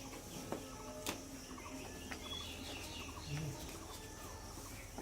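Quiet cattle-shed ambience: faint bird calls with a couple of sharp knocks in the first second or so.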